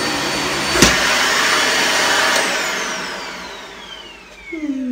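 Dyson Light Ball Animal upright vacuum cleaner running steadily, with a sharp click about a second in. Soon after the second click it is switched off, and the motor winds down with a falling whine over about two seconds; a short low sliding sound comes near the end.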